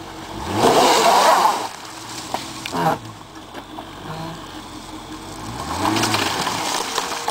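Jeep Cherokee engine revving up twice off-road: a loud rev rising in pitch about half a second in, and a second one near the end.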